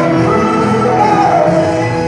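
A man singing into a handheld microphone over backing music, his voice holding and sliding between notes.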